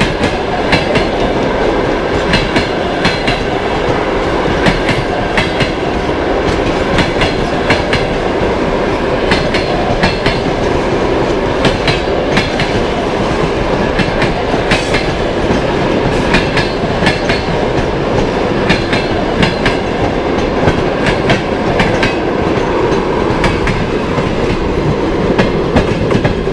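Passenger coaches of a long train rolling past close by, wheels clattering over rail joints in regular clusters of clicks over a steady rumble.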